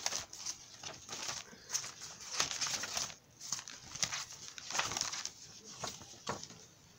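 Pages of a handmade junk journal, mixed paper and card, being flipped by hand: a run of irregular rustles and soft flaps.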